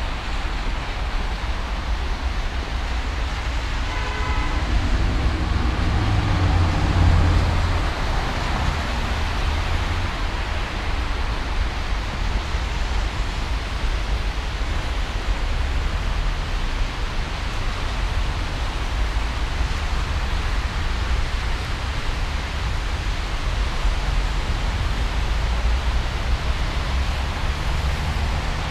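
Steady city street noise: a continuous traffic rumble, with a heavy vehicle passing close by, swelling about six to eight seconds in after a brief engine whine about four seconds in.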